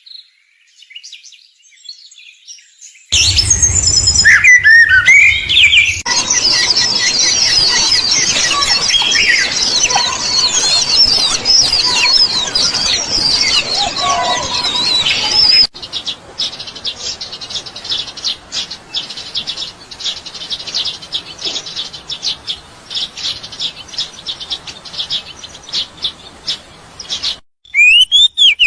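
Small birds chirping and twittering in many quick high, gliding calls. After a faint start the sound comes in suddenly with a brief low rumble. It changes abruptly to dense overlapping twittering, then to a fast run of short chirps.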